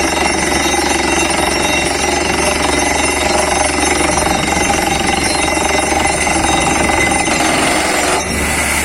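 Borewell drilling rig running loudly and steadily, with dense rapid hammering from the drill at work.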